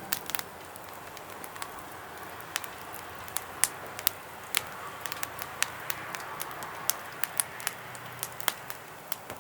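Wood fire crackling in a campfire pit: irregular sharp pops and snaps over a soft steady hiss.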